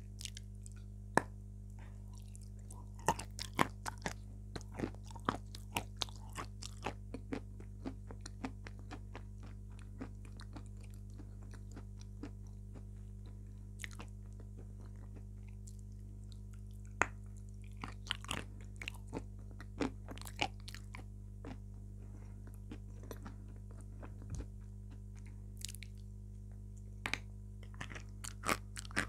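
Close-up eating sounds of a chocolate-coated crispy dessert with a soft filling, picked up by a lapel microphone held near the mouth: sharp crunches and chewing in bursts, with quieter gaps between them.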